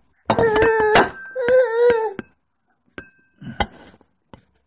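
A baby's voice: two drawn-out, high-pitched vocal sounds of under a second each, the second falling slightly in pitch, followed by a few sharp clicks and knocks.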